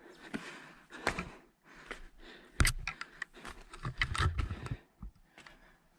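Irregular footsteps and scuffs of shoes on rock and loose sand while climbing a steep rocky slope, with the louder scrapes and knocks about two and a half seconds in and again around four seconds in.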